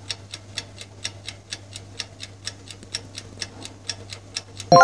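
Clock-ticking sound effect counting down the puzzle's answer time: even ticks, about four a second, over a faint low hum. A bell-like chime starts right at the end as time runs out.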